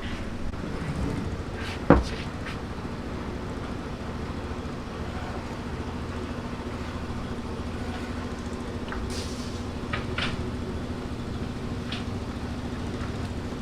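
A steady machine-like hum, with one sharp knock about two seconds in and a few lighter clicks near the middle.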